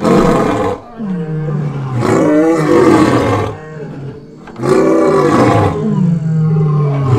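A white male lion roaring: three loud roars about two seconds apart, then lower calls that fall in pitch near the end.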